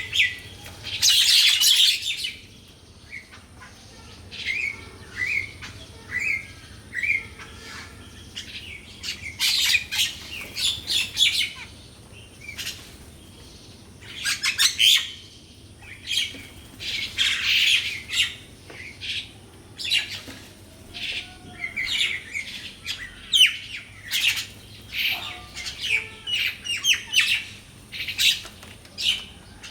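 Wild birds calling: many short chirps and whistled notes, broken by several louder, rasping calls, each about a second long.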